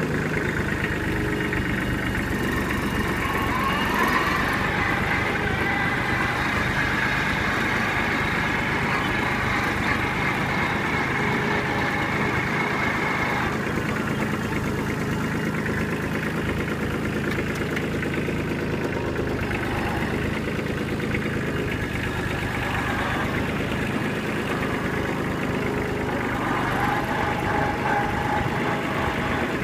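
Kubota B2441 compact tractor's diesel engine running steadily under way. A higher whine sits over the engine from a few seconds in and cuts off suddenly about halfway through.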